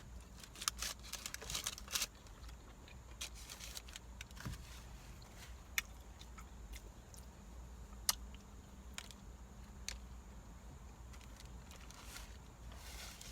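Close-up eating sounds: chewing with small mouth clicks and occasional crinkles of a paper food wrapper, heaviest about a second or two in, over a steady low hum.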